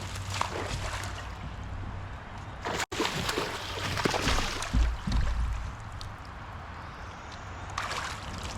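Water sloshing and gurgling against a fishing kayak, with a few dull knocks a little past the middle.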